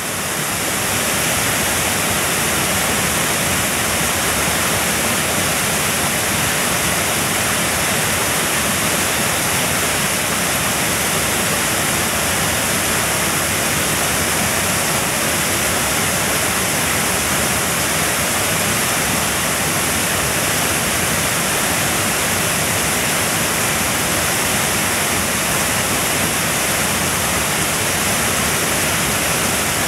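Small woodland waterfall cascading down a rock face into a pool: a steady, even rush of falling water.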